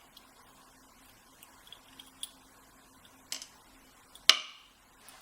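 Small metal padlock parts (pins and core pieces) being handled: a few faint clicks, then one sharper click with a short ring about four seconds in.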